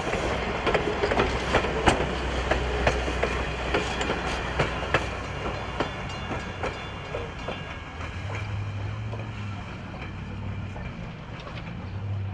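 Passenger train's coach wheels clicking over rail joints as the train rolls past and away; the clicks come thick at first, then thin out and fade over the second half, over a steady low rumble.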